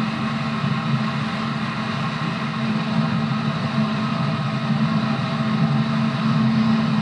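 JR 211 series electric train running at steady speed: the hum of its externally fanned traction motors holds one pitch over the even rolling noise of the wheels on the rails.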